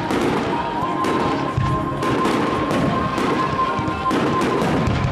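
Fireworks: aerial shells bursting in a rapid, dense string of bangs and crackles. A steady high whistling tone runs through most of it.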